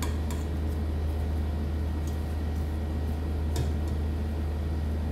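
A steady low hum with a few faint, short clicks.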